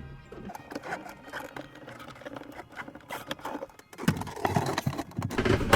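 Hands working on electrical wiring parts: rapid, irregular light clicks and scraping, with louder knocks and handling thumps from about four seconds in.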